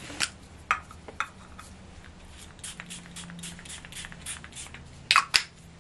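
A series of light, sharp clicks and taps: a few scattered ones, then a regular run of about four a second, then two louder clacks near the end. They come from handling an iPad while its sound is being turned down.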